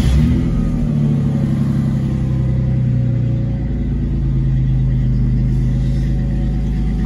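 2001 Ford Mustang engine catching as it is started, then idling steadily through its dual Flowmaster 40 series exhaust, heard from inside the cabin.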